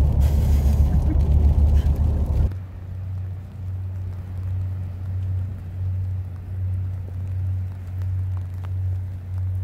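Low engine and road rumble inside a moving Hummer. It cuts off sharply about two and a half seconds in, leaving a quieter steady low hum that swells and fades about once a second.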